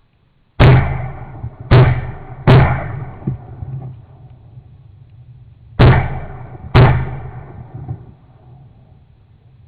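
Shotgun shots while hunting waterfowl: five loud blasts, three in quick succession, then a pause of about three seconds and two more, each followed by a rolling echo and a few fainter pops.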